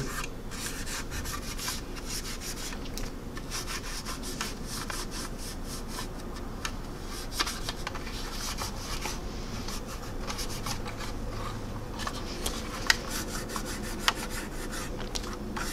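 Paper towel rubbing over the gloss-coated plastic of a scale model aircraft in short, repeated wiping strokes, with a few light clicks: excess panel line wash being wiped off.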